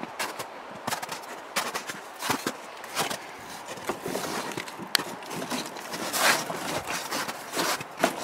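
Footsteps crunching on snow, with knocks and scrapes as a rusted steel door is handled and pulled open; the longest scrape comes about six seconds in.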